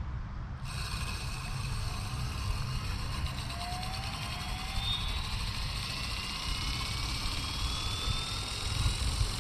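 Electric RC helicopter (FlyWing FW450) spooling up for take-off: its motor and rotor whine start suddenly about half a second in and then rise slowly and steadily in pitch.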